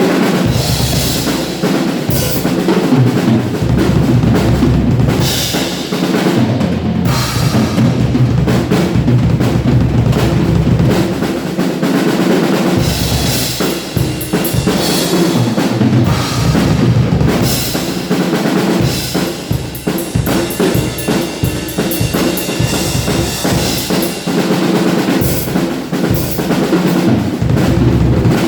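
Acoustic drum kit played continuously, with bass drum, snare and fills, and cymbal crashes recurring every few seconds, recorded through a mobile phone's microphone.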